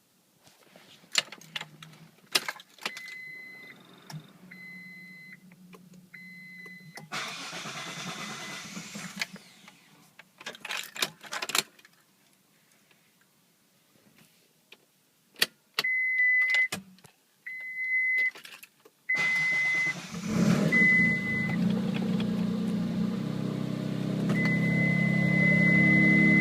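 Mitsubishi 3000GT with its 3.0 L V6: clicks of the key and ignition, and a repeating dashboard warning chime. About twenty seconds in, the engine starts and settles into a steady idle while a chime sounds. The owner traced the engine's noise to a bent number 1 connecting rod, its piston skirt touching the crankshaft counterweights.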